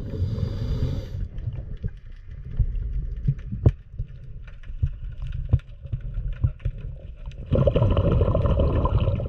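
Muffled low rumble of water with scattered knocks and clicks, heard through a microphone under the water's surface. It gets louder and brighter about seven and a half seconds in, as the water-line comes into view.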